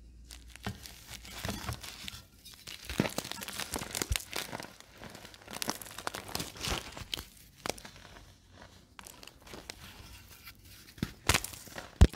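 Hands crushing a dried baking soda reform, a hard pressed block that crunches and crackles in a dense run of small cracks as it breaks into powder. The block has been left to set for over a week, so it is tough to crunch. A single sharp, loud crack comes just before the end.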